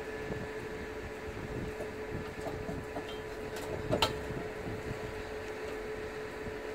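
Steady machine hum with a single constant tone, over wind buffeting the microphone; one sharp click about four seconds in.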